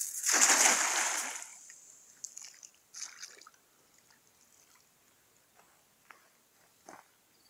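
A thrown cast net slapping down on the lake surface in a wide splash lasting about a second, followed by a few faint splashes and drips as it sinks.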